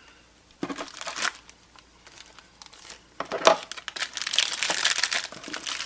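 Crinkly packing material being handled and crumpled while a box is unpacked: a short burst about a second in, then steady crinkling and crackling with a few sharp snaps over the second half.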